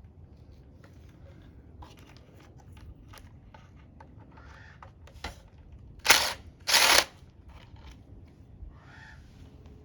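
Small clicks and taps of hand tools and metal parts being handled while unbolting a motorcycle headlight case, with two loud, short bursts of noise about six and seven seconds in.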